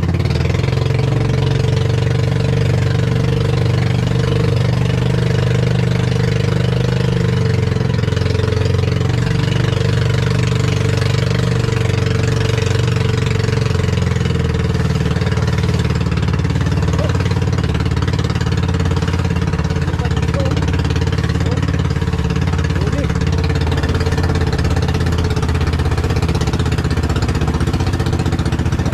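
A small outrigger boat's (bangka's) inboard engine running steadily under way, with an even, unbroken pitch.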